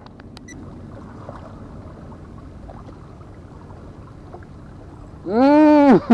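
Faint steady background noise with a few small clicks about half a second in. About five seconds in comes a person's loud, drawn-out shout that rises and falls in pitch over most of a second.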